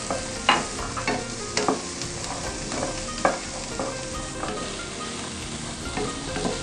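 Sliced green beans, onion and garlic sizzling in melted margarine in a wok while a wooden spatula stirs and tosses them. Irregular taps and scrapes of the spatula against the pan sound over the steady sizzle.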